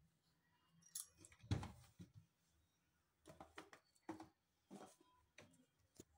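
Faint scattered clicks and knocks of kitchen items being handled, with one louder knock about one and a half seconds in and a sharp click near the end.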